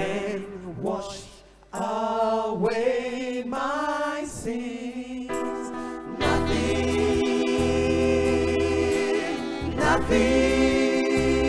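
Gospel choir singing with a woman leading into a microphone. The voices dip briefly near the start, and a deep bass accompaniment comes in about six seconds in.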